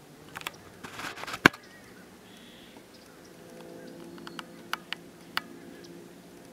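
A few sharp clicks and taps: a short rustle and a cluster of clicks about a second in, the loudest about a second and a half in, then several more near the end, over a faint steady hum.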